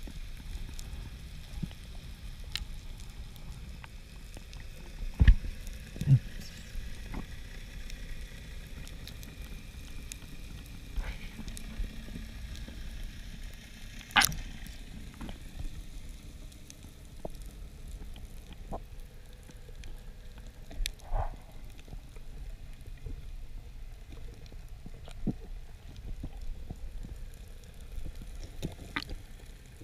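Underwater ambience over a rocky seabed: a low water rumble with a constant faint crackle, broken by a few sharp clicks and knocks, the loudest about five and fourteen seconds in.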